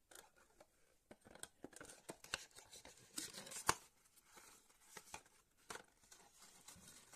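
Quiet handling noises of a glass perfume bottle and its cardboard box: scattered clicks, taps and scrapes of the packaging, the sharpest click about three and a half seconds in.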